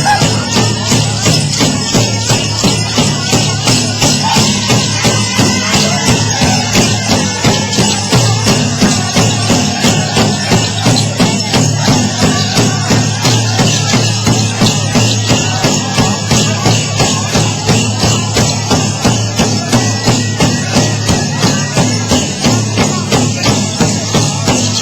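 Powwow drum group beating a large shared drum in a steady, even beat, with a jingling rattle over it.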